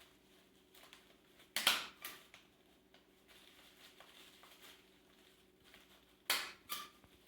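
A hand stapler clacking shut through paper: a pair of sharp clacks about one and a half seconds in and two more near the end, with quiet paper handling between.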